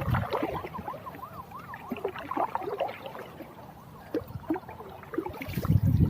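Water sloshing and splashing around a small paddled boat, with light knocks of wood against wood. Near the start there is a short run of rising-and-falling whistled notes, and the water noise grows louder near the end.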